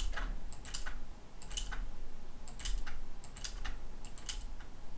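Computer mouse and keyboard clicking irregularly, about a dozen short sharp clicks, over a faint low hum.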